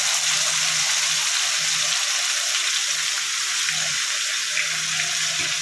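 Mustard seeds, urad dal, curry leaves and crushed spices sizzling steadily in hot oil in a pan: the tempering for rasam.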